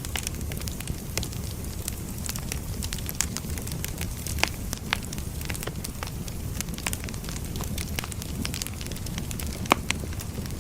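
Firewood burning: a steady low rumble of flames with irregular crackles and pops of the burning wood, two sharper pops about four and a half seconds and nearly ten seconds in.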